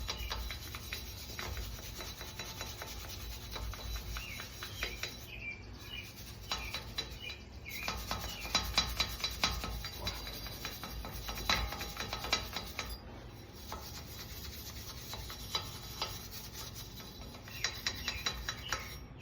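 A small toothbrush-style wire brush scrubbing rust and corrosion off the steel hub face of a truck's front wheel, where the brake rotor seats: a fast, uneven scratching in many short strokes.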